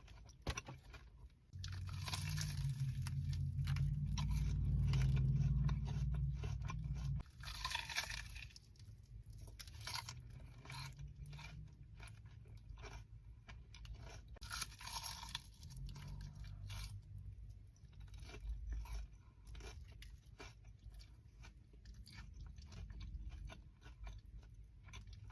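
Close-miked crunching and chewing of a crispy, batter-fried Korean corn dog: a run of short crackly bites and chews. A deep muffled rumble, the loudest part, lasts from about a second and a half in to about seven seconds in.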